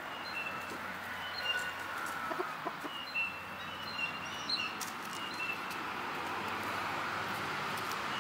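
Chickens clucking, with short high chirps scattered through the first five seconds or so over a steady hiss.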